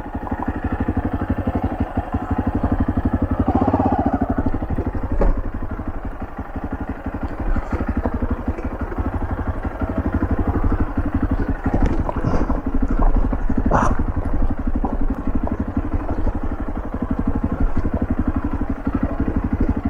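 Motorcycle engine running steadily as the bike picks its way over a rough, rocky dirt track, with a few sharp knocks and clatter, the loudest about 14 seconds in.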